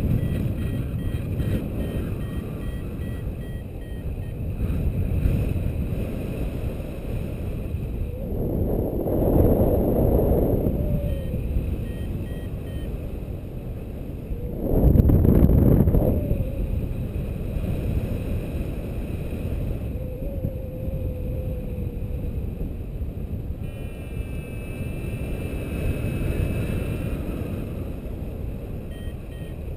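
Airflow rushing over an action camera's microphone in paraglider flight, with two louder surges about eight and fifteen seconds in. Faint short beeps from the paragliding variometer come and go, more steadily near the end.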